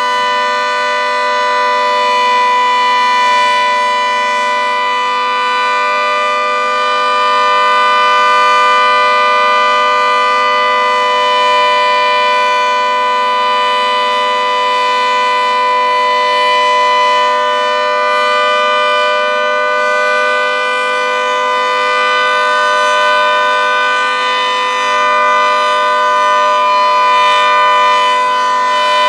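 Federal Signal 2T22 dual-tone rotating electromechanical warning siren sounding a steady alert: a loud chord held at a constant pitch that swells and eases slightly in loudness as the rotating head sweeps past. This is the steady alert signal sounded for a tornado drill.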